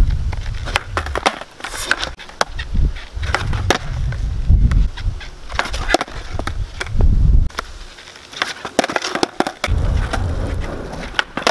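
Skateboard on an asphalt court: its wheels roll in several short runs, with repeated sharp clacks as the tail snaps and the board lands during ollie attempts.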